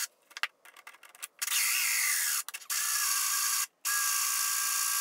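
A Lenox hole saw in a drill cutting into a thick wooden shelf. The first second or so is near quiet with a few clicks, then the saw cuts in three runs of about a second each with short pauses between.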